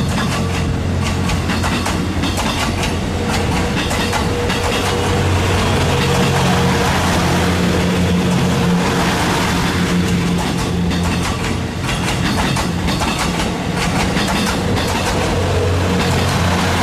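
Twilight Express Mizukaze, a Kiha 87 series diesel-electric train, running past: a steady low engine hum under rapid, irregular clicking of wheels over rail joints.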